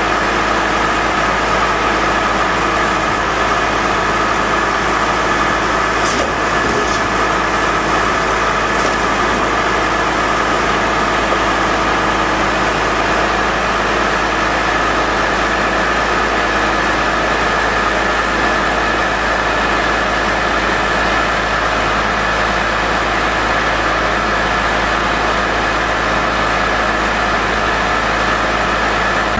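Truck-mounted core drilling rig running: a steady, loud mechanical drone with a constant high whine over a low hum, unchanging throughout.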